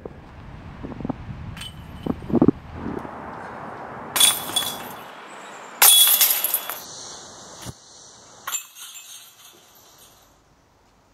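Disc golf discs striking the chains of a metal basket: a jangling chain rattle about four seconds in, a louder one about six seconds in that rings on for about a second, and a shorter rattle a little later.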